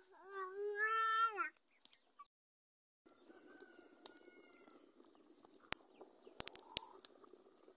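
A domestic cat meowing: one long meow lasting about a second and a half, its pitch dropping at the end. A few sharp clicks follow later over faint background noise.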